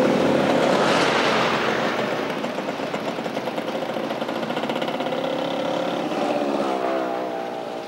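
Truck engine running close by as the truck passes, its pitch wavering and rising near the end before it fades.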